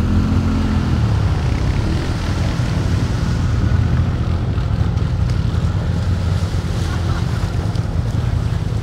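Quad bike engine running steadily while its wheels churn water, the machine bogged deep in a pond; the engine note drops in pitch in the first second. Wind buffets the microphone.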